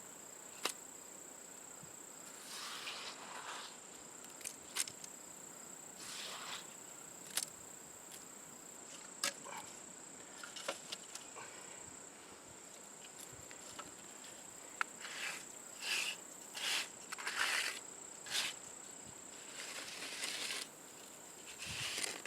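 Steady high-pitched insect trill, with short scraping swishes and a few sharp clicks or taps coming and going over it, more of them in the second half.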